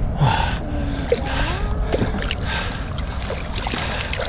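Water splashing as carp are tipped out of a keep net over the boat's side and thrash free at the surface, in several short splashes over a steady low rumble.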